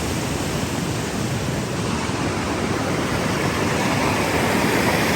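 Rushing water from a stream or falls: a steady, even hiss that grows slightly louder over the last couple of seconds.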